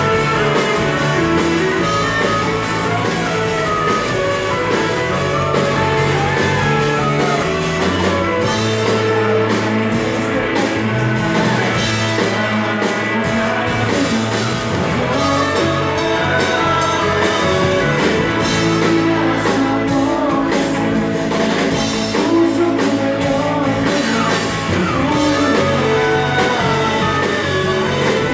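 Live rock band playing a song: electric guitars, bass and drum kit with a singer, steady and loud throughout.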